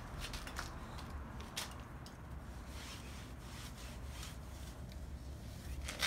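Damp microfiber cloth wiped over window screen mesh: soft scratchy rubs in short strokes, over a steady low rumble.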